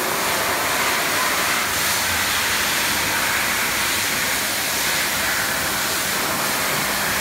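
Heavy storm rain and wind beating against a high-rise window, heard from inside: a loud, steady hiss.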